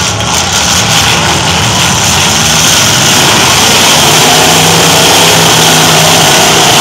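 Engines of several demolition-derby pickup trucks running and revving at once, loud and continuous. One engine holds a steady note for about two seconds, starting about four seconds in.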